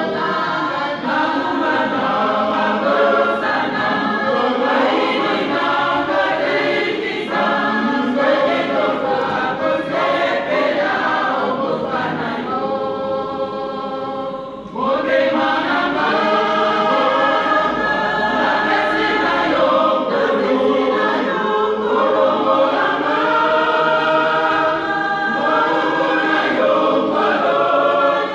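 Mixed choir singing a hymn unaccompanied, in parts. About halfway through, the singing thins to a quieter single line for about two seconds before the full choir comes back in.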